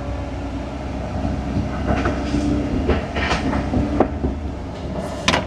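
Heavy equipment's engine running steadily, with intermittent metallic clanks and squeaks from the machine. Sharp strokes come about two, three and four seconds in, and a louder one near the end.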